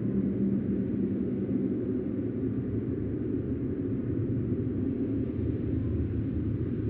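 Steady, low rumbling ambience of an eerie mountain-top soundscape, an even drone without distinct events.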